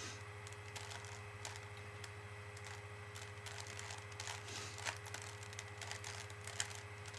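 Plastic Rubik's cube being twisted, its layers clicking faintly and irregularly as they turn, over a steady low electrical hum.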